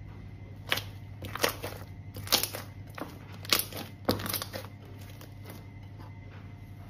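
Thick green slime with glitter and small beads squeezed and pressed by hand in a glass dish, giving a handful of sharp pops and crackles in the first four and a half seconds, over a steady low hum.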